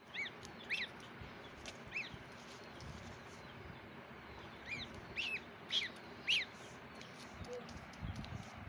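A young duckling peeping: short high peeps, three in the first two seconds, then a run of four more a few seconds later.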